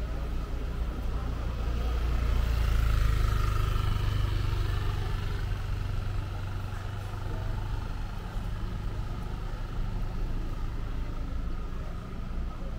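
Street traffic: a motor vehicle passes close by, its engine and tyre rumble swelling to its loudest about three seconds in and then easing back to a steady traffic hum.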